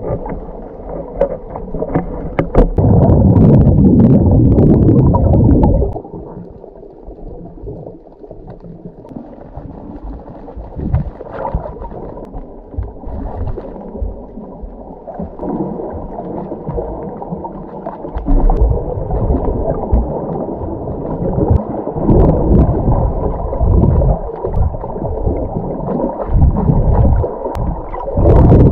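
Muffled underwater water noise picked up by a camera held below the surface while snorkeling: low sloshing and gurgling with no clear high sounds. It is loud for a few seconds near the start, drops back for a stretch, then swells again in uneven pulses from about two-thirds of the way in.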